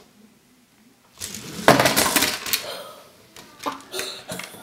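Plastic Lego Technic buggy and its loose parts clattering onto a hard wooden tabletop as small pieces scatter: a burst of sharp clicks and rattles starting about a second in and dying away over the next two seconds.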